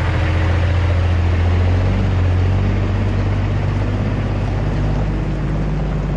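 Diesel semi-truck engine running with no mufflers, a deep steady drone at low speed whose pitch shifts slightly a couple of seconds in.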